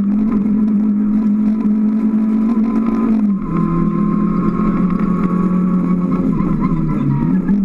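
Rally car's engine running hard at high revs, heard from inside the cabin. About three seconds in the note drops suddenly, as at an upshift, and near the end it dips briefly before picking up again.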